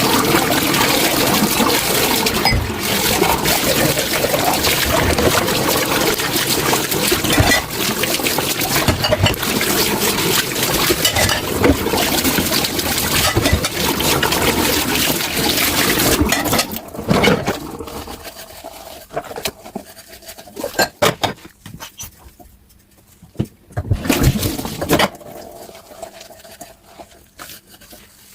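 Tap water running into a kitchen sink over dishes, then stopping about seventeen seconds in. After that come separate clinks and knocks of dishes being handled.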